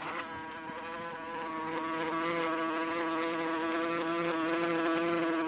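A wasp buzzing in flight: a steady, high buzz with a slightly wavering pitch, growing a little louder toward the end.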